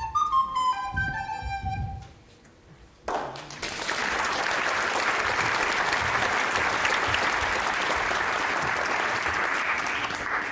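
A high instrumental melody of clear separate notes ends about two seconds in. After a short pause, audience applause breaks out and goes on steadily.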